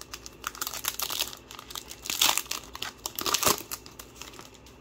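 A foil Yu-Gi-Oh! Maximum Gold booster pack being torn open by hand, the wrapper crinkling and crackling throughout, with two louder bursts about two and three and a half seconds in.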